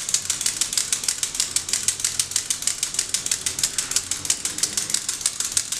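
Homemade onion rattle being whirled: a loop of binding wire scrapes across a bundle of wooden skewers, making a rapid, even run of sharp clicks.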